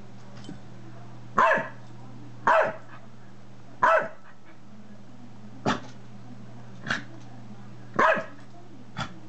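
A dog barking in seven short single barks, spaced a second or so apart, the first three and the sixth loudest: play barks, one dog urging the other to play.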